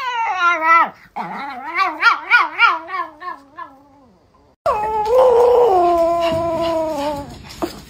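Pomeranian dogs vocalizing: a run of short, wavering, yodel-like whines and yowls, then after a cut about four and a half seconds in, one long howl that slides slowly down in pitch.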